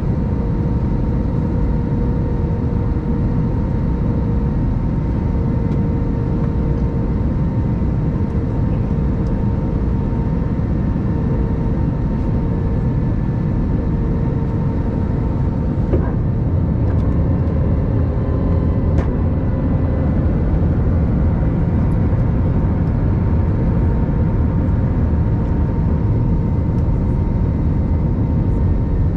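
Steady cabin rumble of an Airbus A321-200 jetliner, its engines and airflow giving a deep, even roar with a faint steady hum above it. A couple of faint clicks come in the second half.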